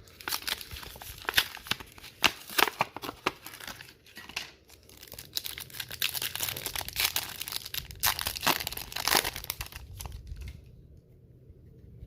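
Foil wrapper of a Yu-Gi-Oh Brothers of Legend booster pack being torn open and crinkled by hand: a quick run of crackles and rips that stops about ten and a half seconds in.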